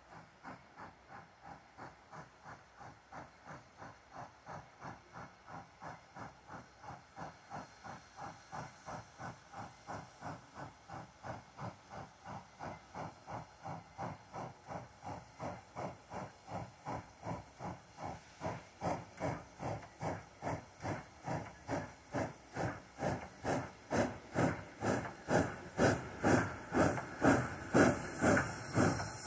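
Norfolk and Western 475 steam locomotive working steam, its exhaust chuffing in a steady, even beat that grows steadily louder as the engine approaches.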